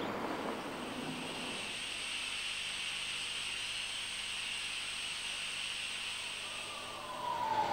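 Steady hiss with a faint, thin high whistle above it, and a single tone sliding down in pitch near the end.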